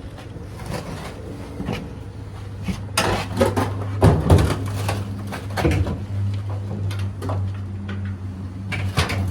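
Clicks and knocks of metal dryer panels and parts being handled and pulled during disassembly, busier and louder from about three seconds in, over a steady low hum.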